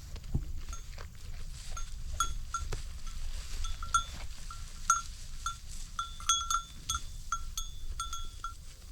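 A bell worn by a sheep, clanking repeatedly at an irregular pace of a few strikes a second as the animal moves and grazes, over a low steady rumble.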